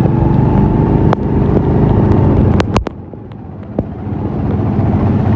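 Small Honda motorcycle engine running while riding, a steady low note that drops off for about a second midway and then builds again, with a few sharp clicks.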